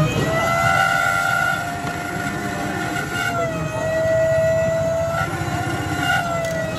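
Electric motor of a battery-powered automatic sugarcane juice machine whining steadily as sugarcane sticks are fed in, its pitch dipping and rising a little a few times. A dense low rumble runs underneath.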